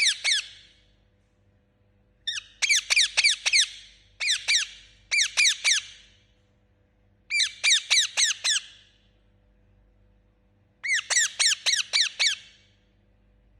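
Rose-ringed parakeet (Indian ringneck) chirping in quick runs of sharp notes, each sliding downward in pitch. There are six runs of a few to several notes, with short pauses between them.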